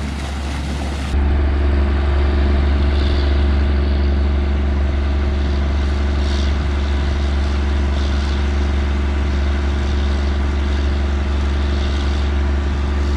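Farm tractor's diesel engine running steadily under load, driving a PTO-powered flood pump. The first second is water rushing out of the pump's large discharge pipe, cut off abruptly by the steady engine drone.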